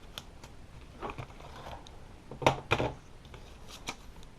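Paper leaflets and packaging being handled: light rustling and scattered clicks, with two sharper taps a little past halfway.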